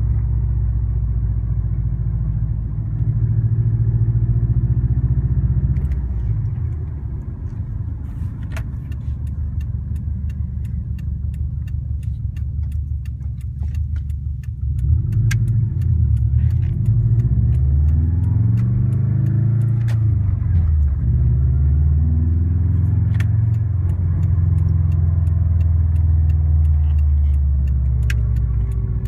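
2004 Subaru WRX's EJ205 turbocharged flat-four running while still warming up, its engine speed rising and falling a few times, with scattered sharp ticks. The knocking sound first taken for piston slap turned out to be an exhaust leak from a cracked up-pipe flange.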